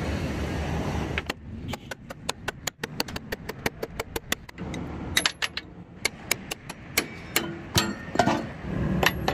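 Hammer striking the steel chassis frame and bolts of a Hino truck, a run of sharp metallic blows about four a second starting a little over a second in, the later blows louder and briefly ringing.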